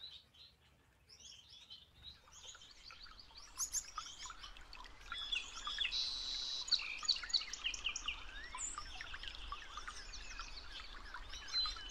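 Gouldian finches chirping and twittering, mixed with a male's courtship song: a stream of short high chirps that builds from faint about two seconds in, with a buzzy stretch near the middle.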